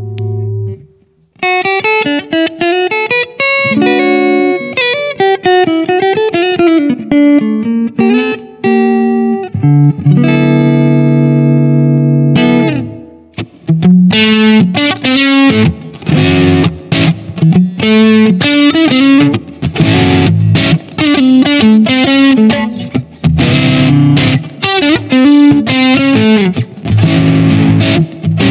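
Electric guitar with humbucking pickups played through an amp. A chord rings out and stops, then comes a single-note lead line with string bends, then another held chord. From about halfway the playing turns to denser, brighter, quickly picked riffing.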